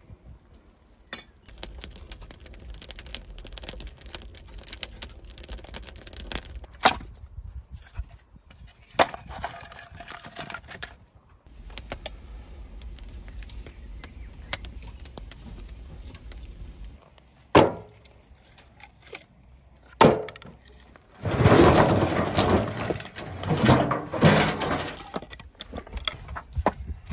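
Wood fire crackling as it burns in an oven, then split firewood logs knocking and clattering together as they are handled, the clatter loudest near the end.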